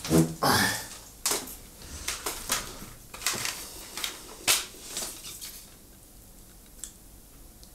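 Crinkling and clicking of a CD package being unwrapped and handled, a string of sharp crackles and taps that stops about five and a half seconds in.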